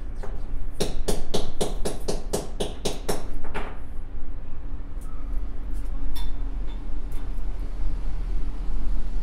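A quick run of sharp metallic clicks, about four or five a second, as a metal band clamp is worked around a rubber CV joint boot. The clicks stop after about three and a half seconds, leaving a few faint handling clicks over a steady low hum.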